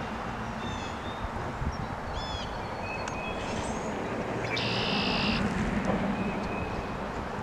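Scattered short bird chirps over a low steady rumble that swells slightly about five seconds in, with a harsh buzzy call lasting under a second at about the same point.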